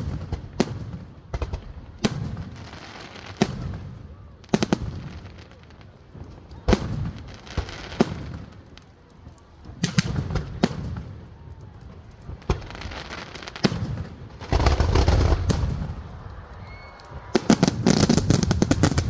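Fireworks display: single sharp bangs about a second or two apart, then a dense barrage of rapid bangs and crackles in the last few seconds, the finale of the display.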